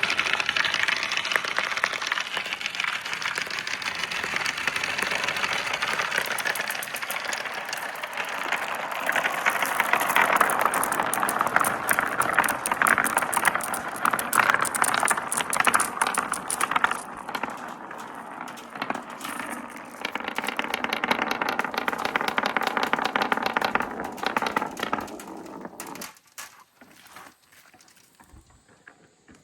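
Glass marbles rolling and clattering down marble-run slopes: a dense, continuous rattle of rapid clicks that falls away about 26 seconds in, leaving a few scattered clicks as the last marbles finish.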